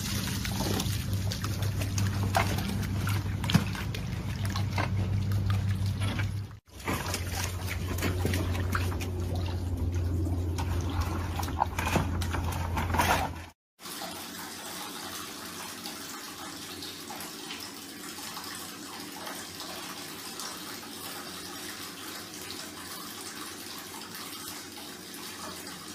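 A steady low hum with scattered light knocks, cut off abruptly twice. From about halfway, a steady even hiss of water running in a bathtub.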